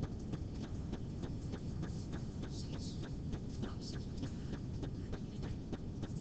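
A student's faint, off-microphone voice answering a question in a classroom, over steady low room noise with a run of faint ticks.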